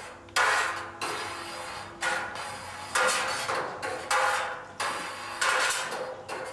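A long curd knife knocking against the wall of a stainless steel cheese vat as the set curd is cut, about one sharp knock a second, each with a short ring.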